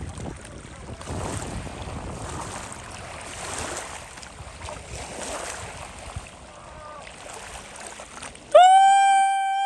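Wind buffeting the microphone over choppy water, with waves lapping. About eight and a half seconds in, a loud pitched tone starts suddenly: it rises briefly, holds steady, then falls away.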